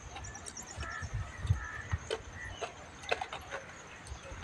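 Birds calling: a quick run of high chirps early on, then a few short whistled notes. Soft scattered clicks and taps come from people eating off steel plates.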